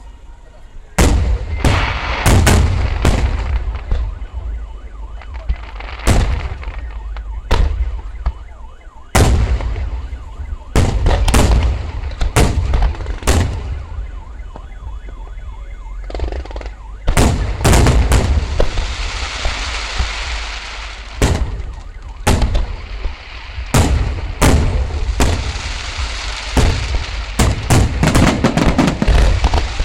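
Fireworks display: a rapid, irregular series of loud shell bursts over a continuous deep booming rumble, with a stretch of dense crackling hiss about two-thirds of the way through.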